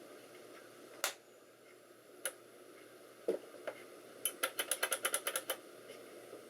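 Small clicks and taps from handling parts and connectors inside a desktop computer case. There are two single clicks, a duller knock, then a quick run of about a dozen clicks, roughly ten a second.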